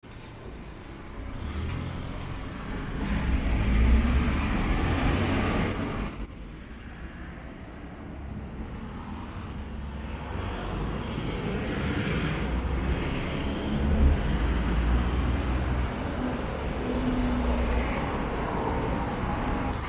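Yamaha FJR1300A's inline four-cylinder engine running at idle, with a steady low rumble that swells louder a few times.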